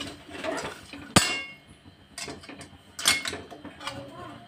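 Metal utensil scraping and stirring in a pan of dried coconut being roasted, with a sharp ringing clank on the pan about a second in and another knock about three seconds in.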